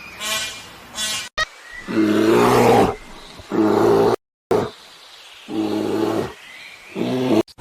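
A series of loud, rough animal calls, five or six in a row, the longest lasting about a second, broken up by abrupt cuts between clips.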